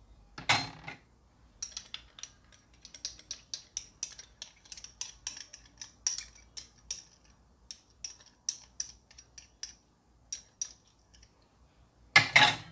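A knock about half a second in, then a long run of quick, light metallic clicks and taps of a spoon against a small container and the bowl, several a second with a slight ring, stopping about a second before a louder clatter at the very end.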